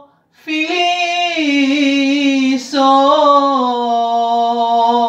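A woman singing a slow Greek song unaccompanied, holding two long notes that slide lower, with a short break between them.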